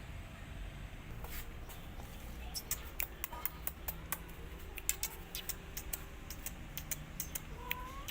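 Mother cat and kittens: a run of quick small clicks and ticks, several a second, over a low steady hum, with a short rising kitten mew near the end.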